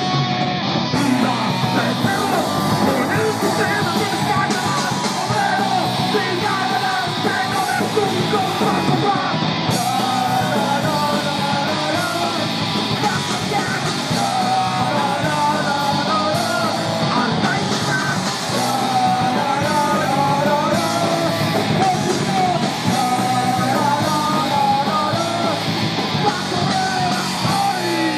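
Punk rock band playing live, with electric guitars through amplifiers and drums, and a singer shouting the vocals over them from about a second in.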